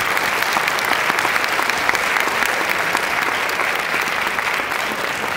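Lecture-hall audience applauding steadily, many hands clapping at once.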